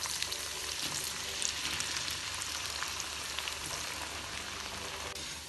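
Par-boiled potato sticks deep-frying in hot oil: a steady, crackling sizzle of bubbling oil with scattered small pops.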